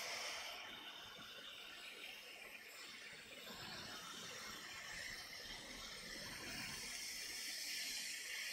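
Hot air rework station blowing over a reballing stencil, a faint steady hiss of air that softens about half a second in and strengthens again near the end.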